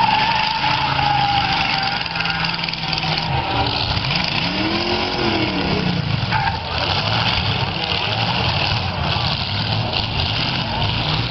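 Several demolition derby cars' engines running and revving under load, with one engine revving up and back down about four to five seconds in.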